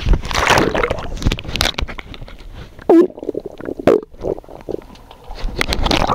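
Pool water gurgling and bubbling with the microphone underwater, broken by irregular knocks and two loud short blurts of air bubbles about three and four seconds in: an underwater fart bubbling up.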